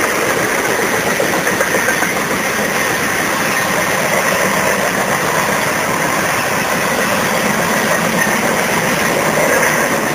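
Steady rolling noise of a freight train's covered hopper cars passing close by, their steel wheels running on the rails.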